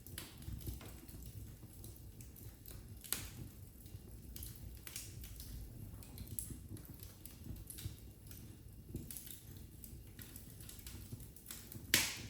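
Wood fire in a fireplace crackling: a low steady rumble of the flames with scattered sharp pops and snaps, one louder pop about three seconds in and the loudest near the end.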